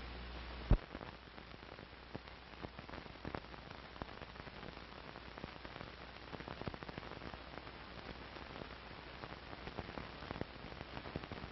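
Surface noise of an old film print's soundtrack with no programme sound: a steady hiss dotted with crackles and clicks. A sharp pop comes about a second in, and a low hum stops with it.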